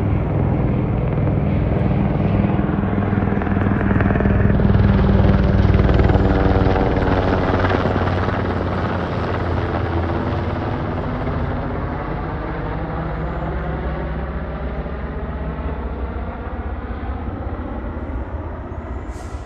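Helicopter flying past, its rotor and engine drone growing louder to a peak about six seconds in and then slowly fading as it moves away.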